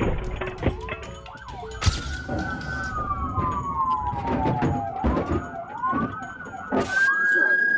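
Several police car sirens wailing at once, their overlapping tones slowly rising and falling in pitch. Two sharp knocks cut through, one about two seconds in and one near the end.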